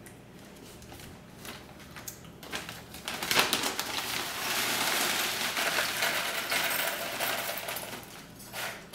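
Horticultural charcoal pieces pouring from a plastic bag into a glass terrarium: a rattling, hissing rush of small pieces that starts about three seconds in, lasts about five seconds and fades near the end. Before it come a few rustles and clicks of the bag.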